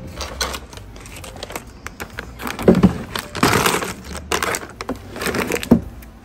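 Irregular rustling and crinkling handling noises with a few knocks, like things being moved or unpacked by hand.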